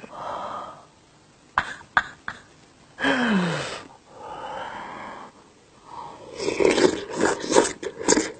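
A person coughs once, a loud burst about three seconds in with a falling voiced tail, with breathy exhales before and after it. Close-miked chewing and biting with wet clicks takes over in the last couple of seconds.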